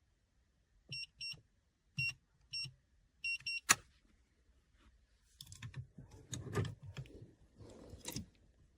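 Six short, high electronic beeps from a steel safe's keypad as a code is punched in, then a sharp click, then a few seconds of metal clunking and rattling as the handle is turned and the bolts move.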